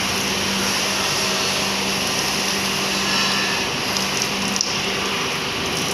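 Compressed air rushing in a steady hiss over a constant low hum, from an air test on a welded pipeline, with a single click about two-thirds of the way through.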